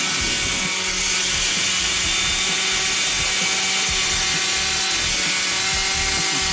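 Concrete-cutting power saw running steadily, a continuous machine whine over grinding noise.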